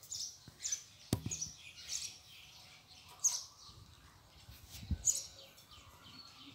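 Small birds chirping over and over in short, high, falling notes, with a sharp click about a second in.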